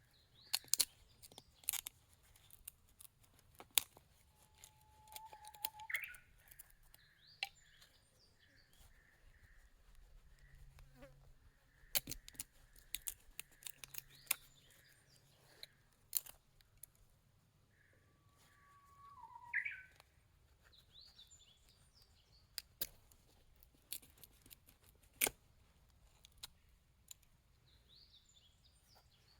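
Scattered sharp clicks and taps, with a few short bird calls and a faint intermittent buzz like a fly's.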